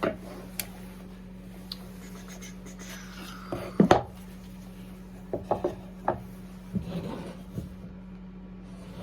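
Pre-cut wooden birdhouse pieces being handled on a bench: scattered knocks and clicks with some scraping and rubbing, the loudest a double knock about four seconds in. A steady low hum runs underneath.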